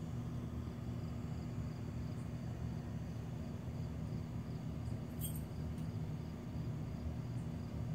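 Steady low hum of room noise with a faint, evenly pulsing high tone above it, and one short click about five seconds in.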